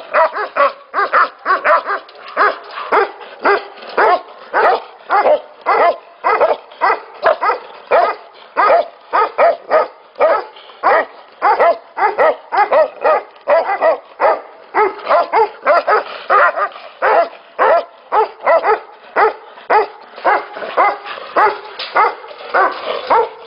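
Tibetan mastiffs barking continuously, about two barks a second with no pause.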